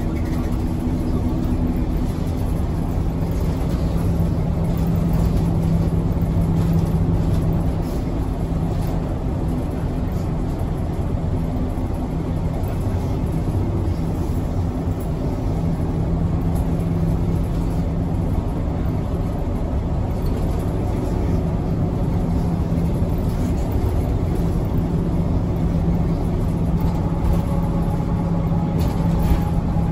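Hiroden city bus under way, heard inside the cabin: a steady drone of engine and road noise, with a low hum that swells and fades in several long stretches.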